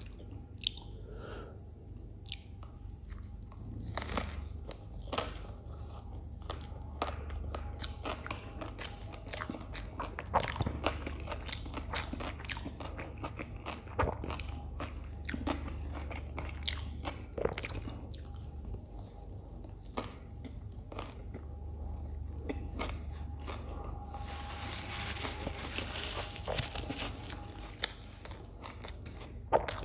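Close-miked chewing of a toasted sandwich: crisp crunches and sharp mouth clicks and smacks, repeated irregularly. A few seconds of hiss-like noise come in near the end over a steady low hum.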